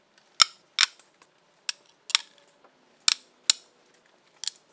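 Metal tools and bar stock set down one at a time on a metal machine table: about seven sharp clacks at uneven spacing.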